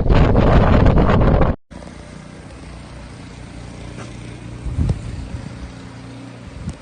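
Strong wind buffeting the microphone for about a second and a half, then a sudden cut to a steady, quieter hum of a vehicle engine running, with a couple of short knocks about five seconds in.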